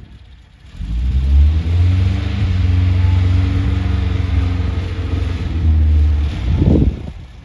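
Air-cooled flat-four engine of a VW split-screen bus starting up about a second in and running steadily, then cutting off near the end.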